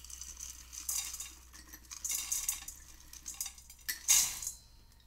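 Dry rolled oats pouring from a glass jar into a measuring cup in several short rustling spells, then tipped into a stainless steel mixing bowl with a louder rush about four seconds in.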